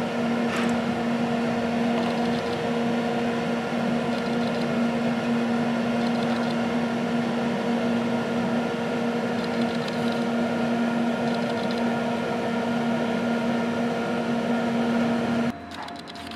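Steady humming drone inside a moving passenger rail car, a low hum with a few fixed tones over a rushing background. It stops suddenly near the end, leaving a quieter murmur.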